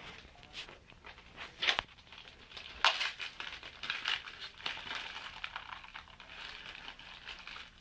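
Toy packaging being handled: irregular rustling and crinkling, with two louder, sharper crackles about two and three seconds in.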